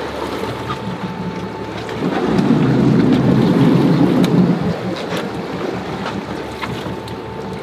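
Wind rumbling on the microphone over a steady boat engine hum, with the rumble swelling for about two seconds in the middle, and a few light knocks.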